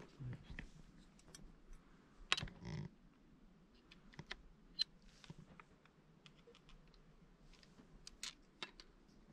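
Scattered light clicks and taps at an uneven pace, with a louder knock and rustle about two and a half seconds in and a few sharper clicks near the end.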